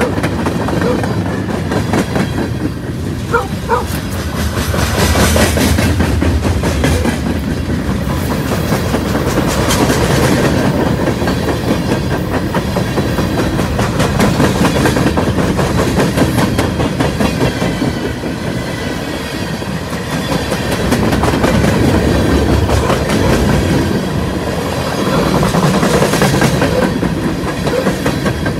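Freight train cars, open-top gondolas and hoppers, rolling past at speed on steel wheels: a steady rumbling clatter of dense wheel clicks over the rail joints, swelling and easing every few seconds as the cars go by.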